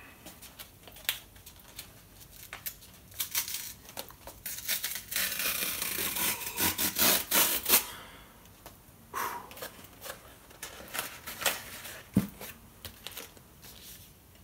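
A cardboard mailer being opened by hand: a strip of packing tape is peeled and torn off in a long ripping stretch about halfway through, with crinkling, rustling and small taps of the cardboard being handled before and after.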